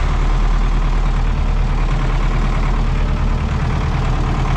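Tractor engine running steadily, heard from inside the cab.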